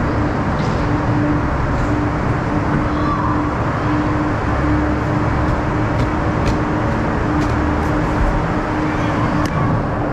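Ice resurfacer's engine running steadily as the machine drives across the rink, a continuous drone with a hum that fades in and out.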